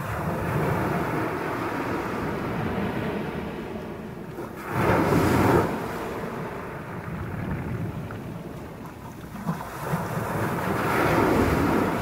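Small sea waves breaking on a pebble beach and washing up over the stones, a steady wash with a louder wave about five seconds in and another near the end.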